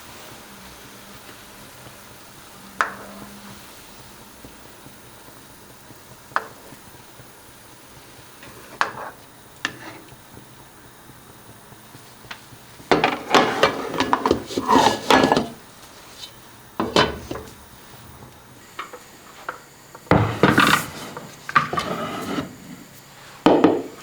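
Kitchenware clinking and clattering: a few separate knocks of utensils on pots and dishes, then busier bursts of clattering in the second half.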